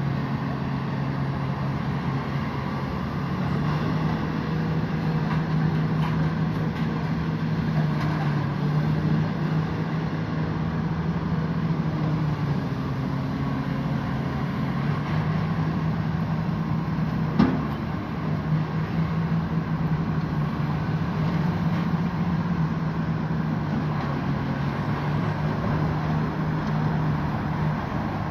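Grab excavator's diesel engine running steadily, with one sharp clank about 17 seconds in.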